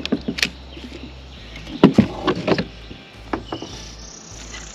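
Knocks and clunks of gear being handled against a fishing kayak's hull, with a loud cluster about two seconds in and a few more near three and a half seconds.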